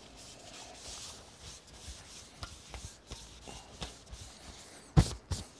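A cloth rubbing over a bowling ball's surface as it is wiped by hand, a soft hiss with scattered small clicks and taps of handling. Two sharp knocks about five seconds in, half a second apart.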